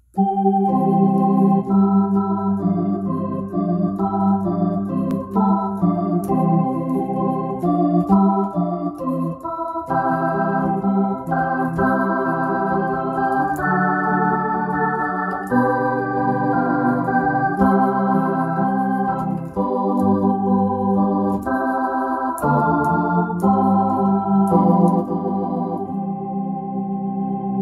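Keyboard with an organ voice playing a hymn introduction in held, steady chords that change every half second to a second.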